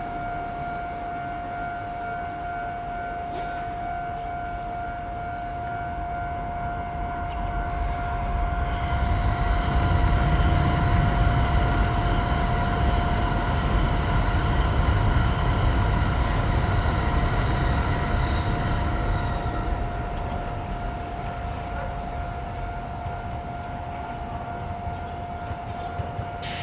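Japanese level-crossing warning bell ringing its steady, repeating 'kan-kan' tone while a Toei Arakawa Line tram passes. The tram's rumble and motor hum swell over the middle and then fade, with the bell going on throughout.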